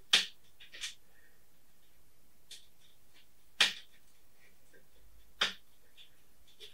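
Palette knife clicking and tapping against a metal tray palette while mixing oil paint into a green: five or so short, sharp clicks a second or more apart.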